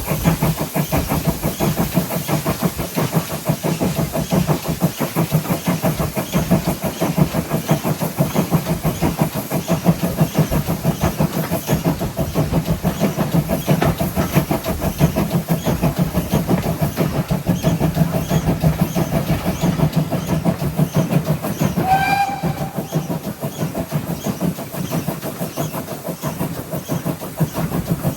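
Great Western 57xx-class pannier tank locomotive 7754 running under way, with a rapid, regular beat and steady running noise. A short whistle note sounds about three quarters of the way through.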